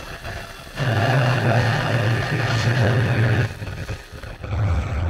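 Cordless electric screwdriver whirring in two runs, the first starting about a second in and lasting nearly three seconds, the second starting near the end, as it backs out the screws of an Antminer S19's power supply top cover.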